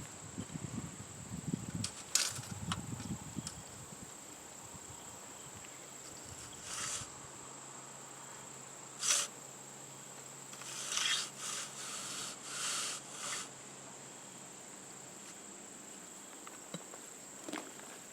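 Steady high-pitched drone of insects. Crunching and rustling in the first three or four seconds, then several short scraping sounds in the middle.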